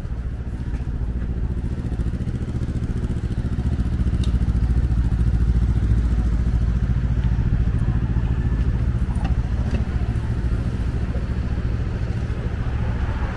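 A large motor vehicle's engine running close by, a low steady drone that grows to its loudest about halfway through and then slowly eases off.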